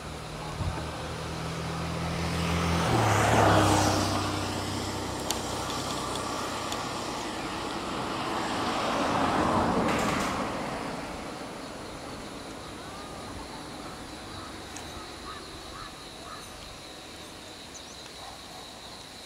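Road traffic passing: an engine hum at the start, then noise swelling and fading twice, loudest about three seconds in and again around nine or ten seconds in.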